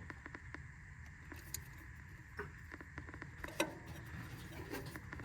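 Faint, irregular clicks and small metallic rattles of a hand tool on the 10 mm bolt of a crankshaft position sensor as it is snugged down.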